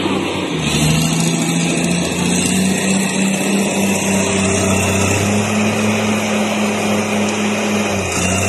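Diesel engines of heavy logging machinery, an excavator with a bulldozer close by, running under load as the log is handled. The engine note drops slightly about half a second in, rises again about five seconds in and dips near the end.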